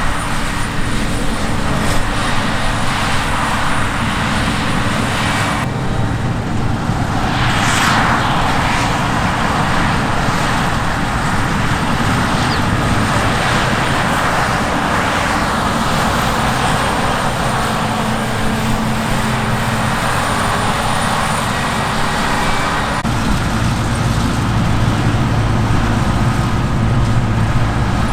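Heavy diesel harvest machinery running steadily under load, a continuous engine drone with machine noise, changing abruptly a few seconds in and again near the end as the sound switches between machines.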